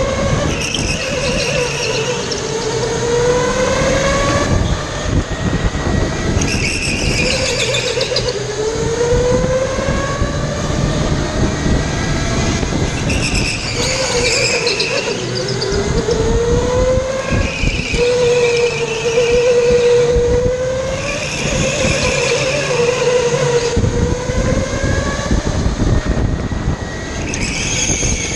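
Go-kart motor running at speed, its whine climbing steadily in pitch as the kart accelerates, then dropping as it slows, over and over. Short high-pitched bursts come every few seconds.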